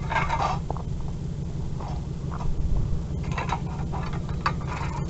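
Short clattering and scraping knocks of junk being handled and pulled apart, several times, over a steady low rumble.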